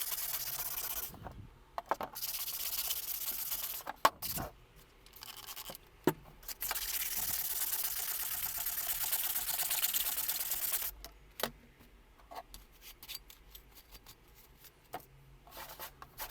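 Abrasive hand rubbing on a workpiece in three bouts, a steady hissy scraping, the longest about four seconds in the middle; after it, scattered light clicks and taps.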